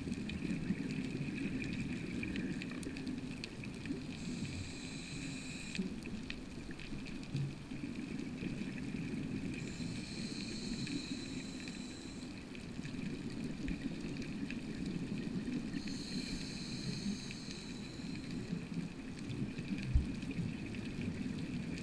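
Underwater sound on a dive: steady low water noise with a faint steady high whine, and a hiss of about two seconds coming back every six seconds or so, three times.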